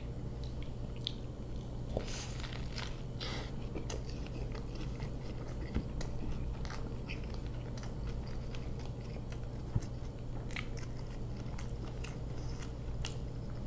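A person biting into a McDonald's double quarter pounder and chewing it, with scattered short clicks and smacks of the mouth and food over a low steady hum.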